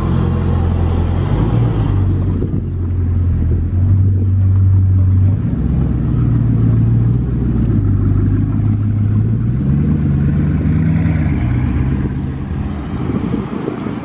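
Bugatti Chiron Sport's quad-turbo W16 engine running at low revs as the car pulls away slowly, a deep steady drone. About ten seconds in, the revs rise briefly, then the sound fades as the car drives off.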